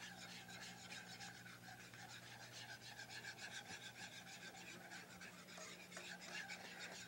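Faint, quick rhythmic scraping of a spoon stirring a thick cream sauce in a pan, several strokes a second.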